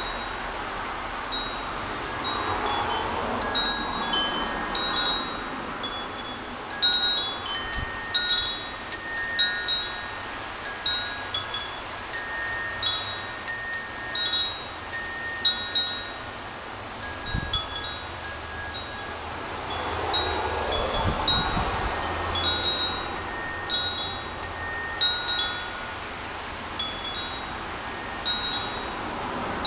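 Hummingbird wind chime ringing in strong wind: irregular clusters of clear chime tones as gusts swing it, busiest in the middle and again in the last third. Gusts of wind rush over the microphone, swelling twice.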